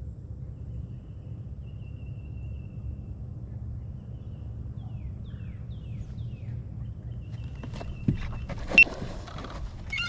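Steady low outdoor rumble with faint bird chirps. About eight seconds in, a sharp snap and a brief high whine come as the hook is set on a bass and the 55-pound braided line sings.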